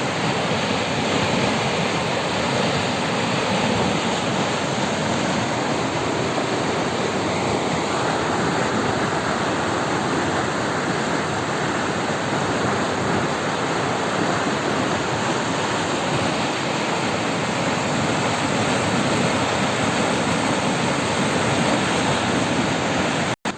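A river in flood after heavy rains, its fast current rushing steadily. The sound cuts off abruptly at the very end.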